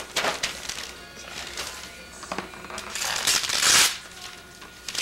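Christmas wrapping paper being torn and crinkled off a present, with a long tear about three seconds in.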